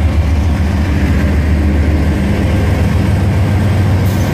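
GE diesel-electric freight locomotives, a Dash 8 among them, passing close at slow speed, their diesel engines giving a steady low rumble. A short hiss comes near the end.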